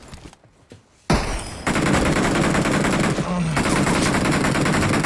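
Rapid automatic gunfire, starting suddenly about a second in and going on as a dense, fast, even stream of shots.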